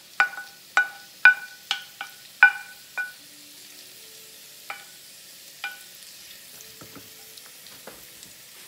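A wooden spoon knocking against a plate and skillet as zucchini noodles are scraped into the pan. There are about eight quick knocks, each ringing briefly, then two more spaced out, with faint frying underneath.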